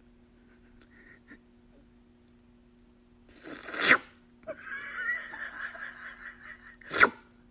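A person sneezing loudly twice, about three seconds apart: the first builds up over half a second into the sneeze, the second is short and sharp. A wavering, hissy sound fills the gap between them.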